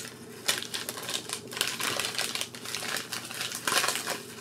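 Crinkling and crackling of a food wrapper handled around a wrap, in irregular clusters of crackles, loudest about two seconds in and again near the end.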